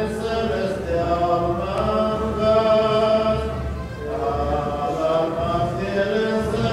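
Voices singing a slow hymn together, in long held phrases, with a brief break and a new phrase about four seconds in.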